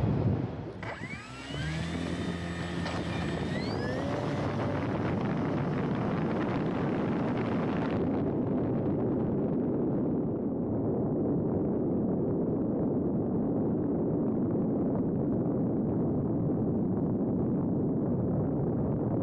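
Onboard sound of an RC E-flite Cessna 150 model plane. Its electric motor and propeller spool up with a rising whine about a second in, which then levels off. This gives way to a steady rush of wind over the airframe and microphone in flight.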